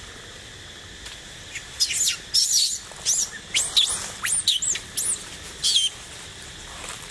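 Young macaque crying: a string of about nine loud, high-pitched screams, each swooping up and down in pitch, starting about a second and a half in and stopping about six seconds in.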